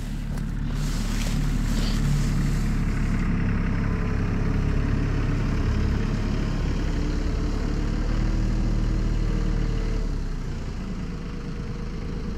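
A vehicle engine running steadily with a low hum, getting a little quieter about ten seconds in.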